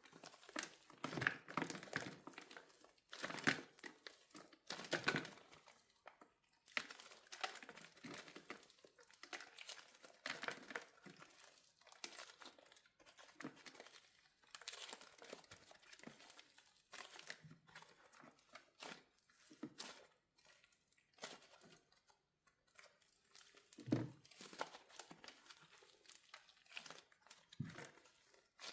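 Wax coating on a soft soap squishy cracking and crinkling as it is squeezed: a run of irregular small crackles, busiest in the first six seconds and sparser after, with a stronger crack about 24 seconds in.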